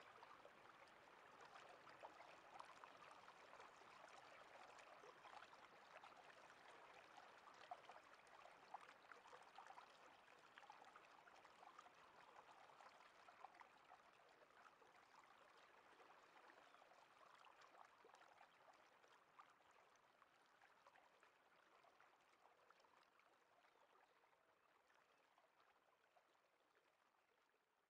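Near silence: a faint hiss with scattered tiny crackles that fades away about two-thirds of the way through.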